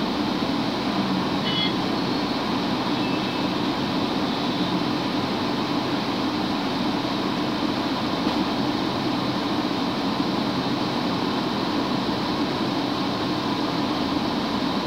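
Steady road and engine noise of a moving vehicle, heard from inside it, with a few brief high chirps about a second and a half in.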